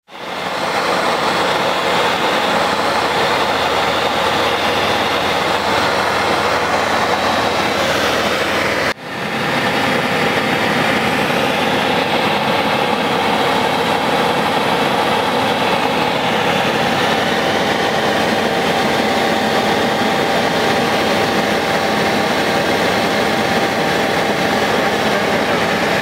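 Light aircraft's engine and propeller heard from inside the cockpit, a loud steady drone with wind and rushing noise through the takeoff roll on a grass strip and the climb-out. The sound drops out for a moment about nine seconds in and picks up again at the same level.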